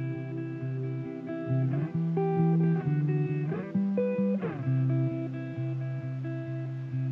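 Background music played on guitar, with a new chord strummed every second or two.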